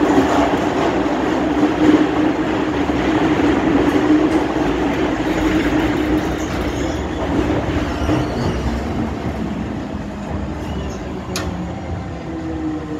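MTR M-Train metro car running through a tunnel, heard from inside the car: a steady rumble of wheels on rail with a traction hum. It grows gradually quieter as the train slows into a station near the end.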